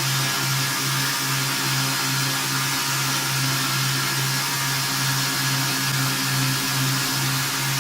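Homemade belt grinder running: a steady motor hum that swells and dips about twice a second, under an even hiss from the moving belt.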